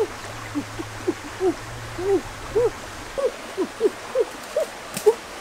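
Chorus of animal calls: short rising-then-falling notes at several different pitches, repeating about two to three times a second.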